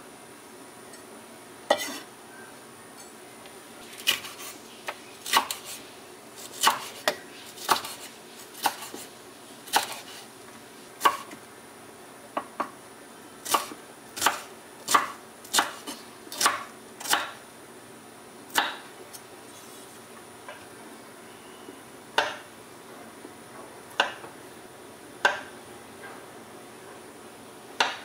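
Kitchen knife cutting bell pepper and avocado on a wooden cutting board: separate sharp knocks of the blade hitting the wood, irregularly spaced, roughly one a second with short pauses.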